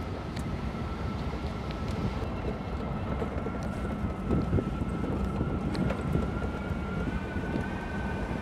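Pickup truck driving on a rough, snowy dirt road, heard from its open bed: a low rumble with wind buffeting the microphone and a few small knocks. A steady high whine runs through it and steps up slightly in pitch near the end.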